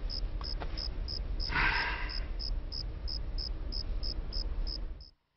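Crickets chirping in a steady rhythm, about three chirps a second, over a low background hum, with a brief rustle about a second and a half in. The sound cuts off abruptly just before the end.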